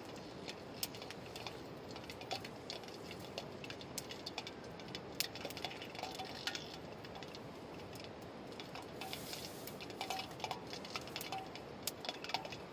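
Scattered light clicks and small clinks of utensils and food containers being handled during cooking preparation, over a faint steady background.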